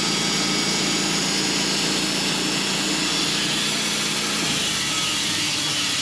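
Portable band sawmill running, its engine under load as the blade cuts through a black walnut log. The engine note shifts lower about four and a half seconds in.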